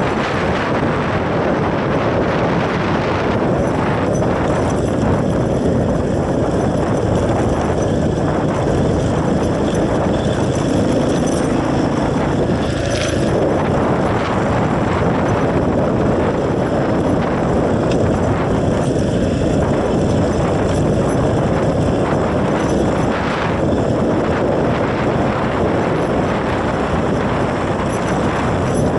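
Dirt bike being ridden: its engine running under a steady, loud wash of wind noise on the microphone, with no clear change in engine pitch.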